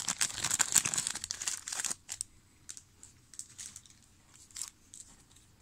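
A trading-card pack wrapper being torn open and crumpled: dense crinkling for about two seconds, then only light scattered rustles.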